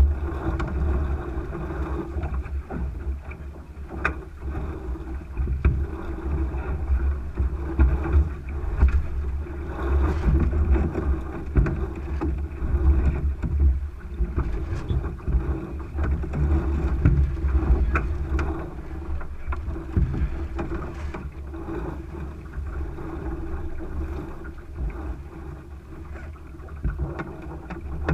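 Wind buffeting the microphone and water rushing along the hull of a Thistle sailing dinghy under way under spinnaker, a steady wash with gusty low rumble, and a few sharp clicks.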